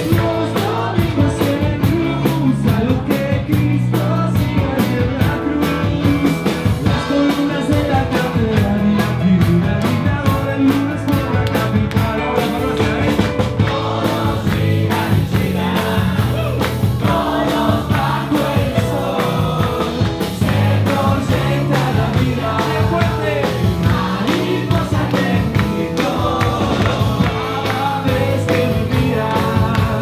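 A live rock band playing: electric guitars and drums with a singing voice, loud and steady.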